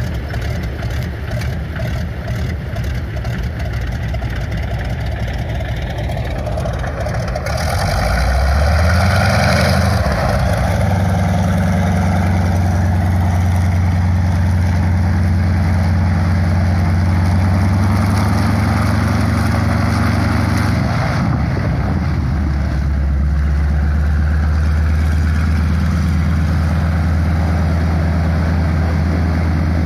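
PZL M-18 Dromader's nine-cylinder radial engine running: a steady rumble at first, then about eight seconds in it revs up with a rising pitch. It holds a higher steady note and drops back to a lower, steady idle about twenty-one seconds in.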